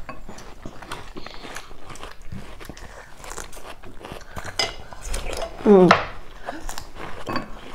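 Biting and chewing of watermelon and crunchy cucumber slices, with forks and chopsticks clicking against plates and bowls. A short voice sound breaks in about six seconds in.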